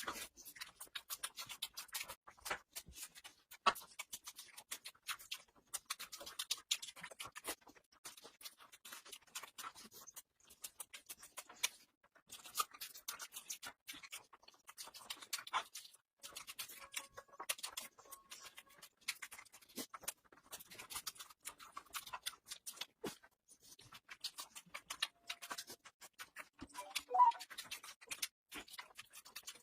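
Close-miked eating sounds: dense, irregular wet clicks and smacks of chewing food.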